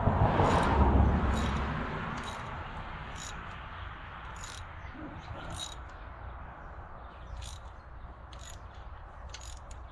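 Crickets chirping at irregular intervals over steady background noise, with a louder rush of noise during the first couple of seconds.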